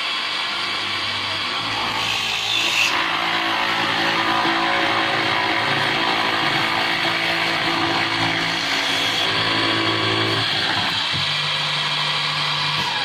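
Electric motor of a door-lock boring machine running steadily with a whirring hum, its tone changing about eleven seconds in.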